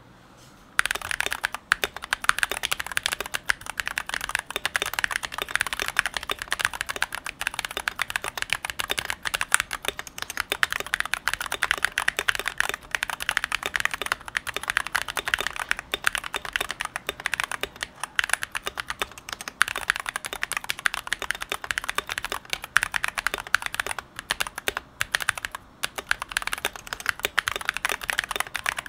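Continuous typing on a GMMK Pro mechanical keyboard fitted with stock Glorious Panda tactile switches and Godspeed keycaps. It has Krytox-lubed C3 stabilizers, a tape mod, its case foam removed and a triple gasket mod. A dense stream of keystroke clacks starts about a second in.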